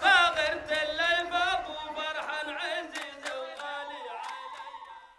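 Several voices singing a chant together over sharp, regular beats, fading out near the end.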